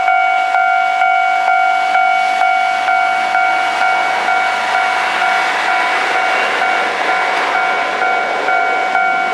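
Japanese railway level-crossing alarm ringing in regular strikes, about two and a half a second, while a Kintetsu express train of 5200 and 1230 series cars passes over the crossing, its running noise swelling through the middle and fading near the end.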